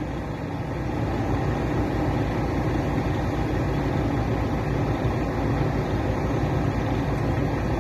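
Heavy construction machine's engine running steadily, a low even rumble with a fast throb.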